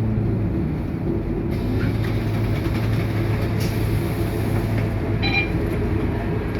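Scania K230UB bus's five-cylinder diesel engine running with a steady low drone and road and cabin noise, heard from inside the bus. A short high chirp sounds about five seconds in.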